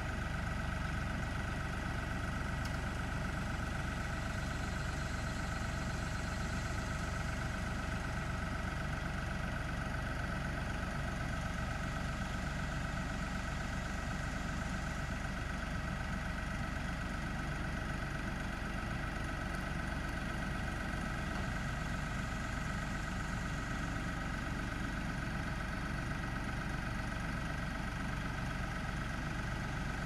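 LS compact tractor's diesel engine running steadily as its front loader pushes the wooden tower blind upright.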